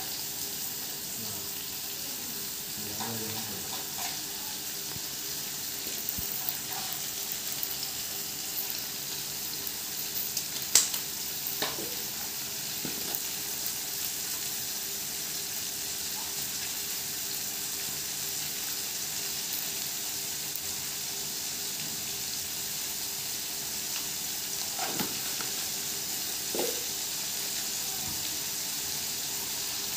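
Sliced onions frying in hot oil in an iron kadai over a gas flame: a steady sizzling hiss. A single sharp click stands out about eleven seconds in, with a few faint knocks later.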